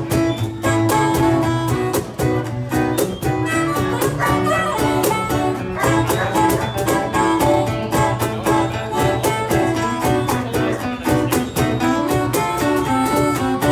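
A live band playing an instrumental passage of a song: strummed acoustic guitar, bass and a drum kit keeping a steady beat, with a harmonica carrying the melody.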